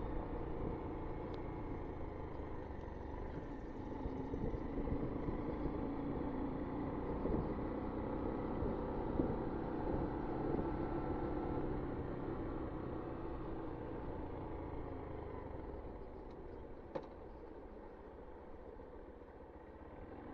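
Honda Monkey 125's single-cylinder four-stroke engine running under way, with a low rumble of wind noise. It eases off and gets quieter over the last few seconds as the bike slows, with one sharp click near the end.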